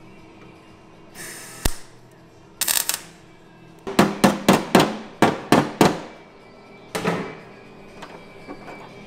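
Two brief crackling bursts of MIG tack welding, then a hammer striking a steel repair patch in a car's rear wheel arch: about seven sharp blows at roughly three a second, and one more a second later.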